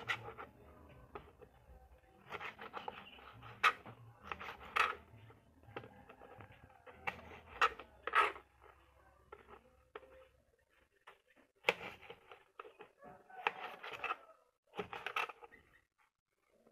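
Small kitchen knife cutting tomatoes into rough chunks on a plastic cutting board: short slicing strokes and taps of the blade on the board, in irregular clusters with brief pauses between.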